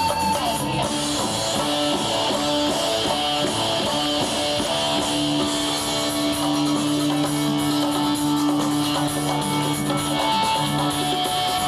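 Live rock band playing an instrumental passage with guitar to the fore, the notes held and the band sound steady.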